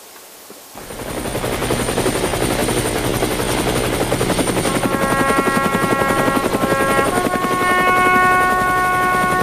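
A flag flapping rapidly in strong wind, with wind buffeting the microphone; it starts suddenly about a second in. From about five seconds a set of steady tones sounds over it, and the tones shift to new pitches just after seven seconds.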